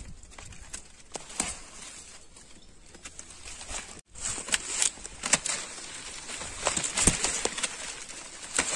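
Leaves and stems of a young mahogany sapling rustling as its shoots are handled during formative pruning, with scattered sharp clicks of hand pruning shears. The sound drops out for an instant about four seconds in, and the rustling is busier and louder after that.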